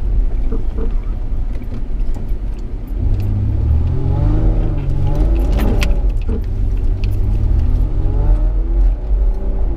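Off-road vehicle's engine running under load, with a heavy low rumble, revving up and down from about three seconds in. A few sharp knocks come through near the middle.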